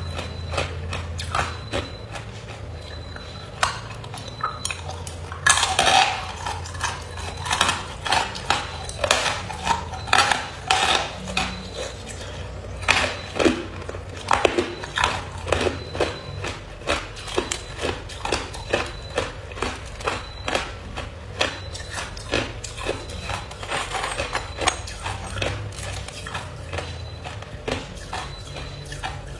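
Hard ice being bitten and chewed: repeated sharp crunches and crackles, coming in quick runs, loudest about six seconds in and through the middle.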